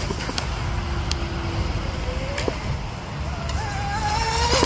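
Twin brushless motors of an RC speedboat whining: faint for the first few seconds, then a rising whine that builds over the last second and a half as the boat speeds up. Low wind rumble on the microphone runs underneath.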